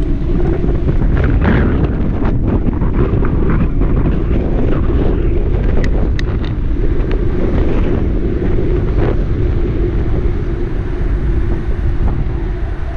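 Wind buffeting a moving camera's microphone: a loud, steady low rumble, with scattered light clicks and rattles, most around two and six seconds in.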